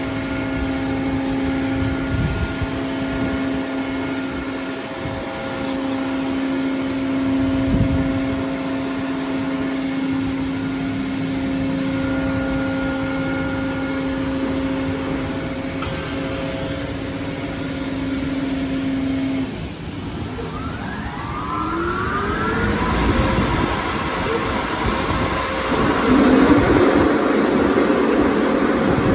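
Autec car wash machinery running: a steady multi-tone hum of motors and pumps while the brushes work on a car. About twenty seconds in, the dryer blower motors spin up with a rising whine and then blow a loud, steady rush of air.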